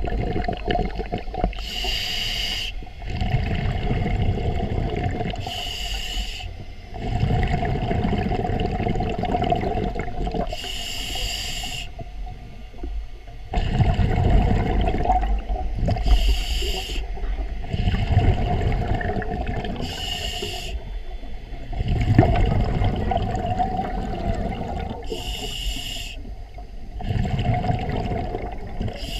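Scuba diver breathing through a regulator underwater: a short hiss with each inhale, then a few seconds of low bubbling rumble as the exhaled air escapes, repeating about every four to five seconds over a steady hum.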